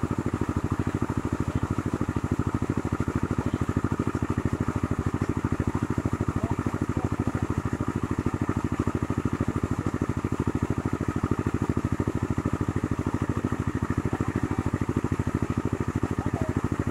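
A small engine running steadily out of sight, with a fast, even pulse of beats that never changes speed.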